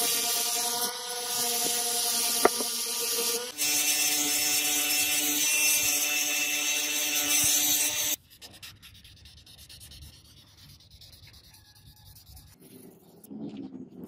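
Hand-held rotary tool with a small pink grinding stone running at high speed and grinding into steel, giving a steady whine over a hiss of grinding; its pitch steps down about three and a half seconds in. The tool stops about eight seconds in, and faint rubbing follows near the end.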